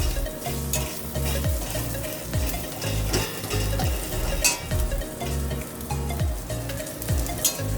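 Jackfruit seeds frying and sizzling in a pan while being stirred, with a spatula clicking and scraping against the pan now and then.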